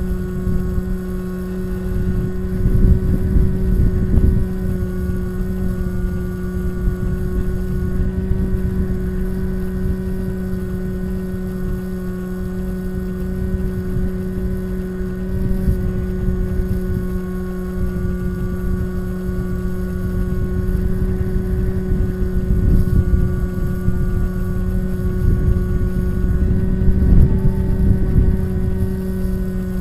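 Bixler RC glider's electric motor and pusher propeller running at a steady pitch, heard from a camera mounted in the plane's nose, with wind buffeting the microphone.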